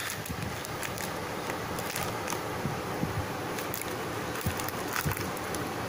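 Steady background noise with a few faint, short clicks.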